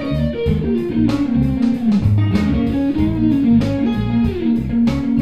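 Outro music: a guitar-led tune over bass with a steady beat.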